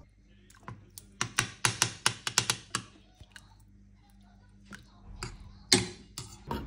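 A metal spoon clinking and scraping against a stainless-steel pot of water in a quick run of clicks, then a few louder knocks near the end, over a faint steady hum.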